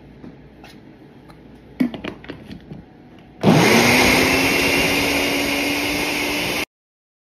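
A few light knocks, then a countertop blender starts about halfway through. Its motor spins up quickly and runs steadily, loud, as it blends a thick cashew mixture, then cuts off abruptly near the end.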